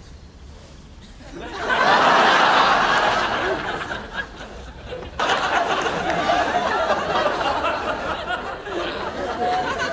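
Studio audience laughing. A wave of laughter swells up about a second and a half in and dies down, then laughter comes in again abruptly about five seconds in and carries on.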